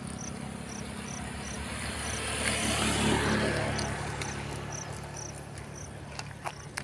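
Crickets chirping in short, evenly spaced pulses about twice a second, over a low steady hum. A broader rush of noise swells up and fades away around the middle.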